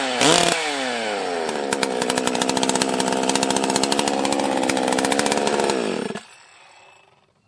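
Husqvarna 261 two-stroke chainsaw engine running rough: it revs up once briefly, settles back and runs at a steady speed, then dies away and stops about six seconds in. The owner suspects a weak ignition coil or a fault in the carburettor.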